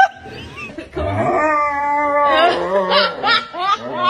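A German Shepherd howling and whining in protest at bath time. It gives one long drawn-out howl starting about a second in, then a run of wavering yowls. A brief rising yip sounds at the very start.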